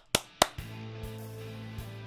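Two sharp hand claps in the first half second, then soft music with a held low chord and a few faint ticks.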